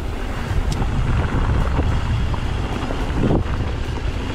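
Wind buffeting a moving camera's microphone over the rumble of mountain bike tyres rolling down a dirt trail, with a few scattered clicks and rattles.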